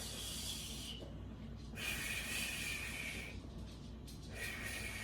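A woman breathing heavily in three long, hissing breaths while she holds back burps from a stomach full of soda.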